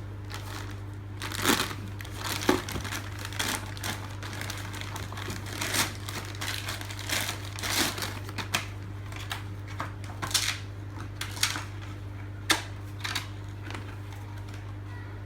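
Plastic wrapping of a printer cartridge crinkling and rustling in irregular handling strokes as it is unwrapped, over a steady low hum.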